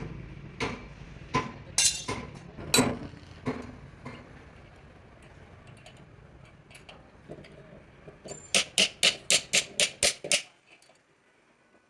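Metal being struck during clutch plate repair: a few separate sharp knocks, then near the end a quick run of about a dozen sharp metallic taps at roughly seven a second, like a hammer tapping on the plate.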